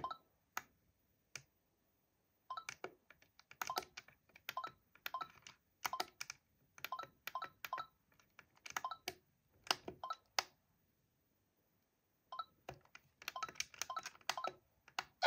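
Plus and minus buttons of a Lexibook Mickey Mouse alarm clock pressed over and over to set the time: a run of short sharp clicks, several a second, stopping for about two seconds near the middle and then starting again.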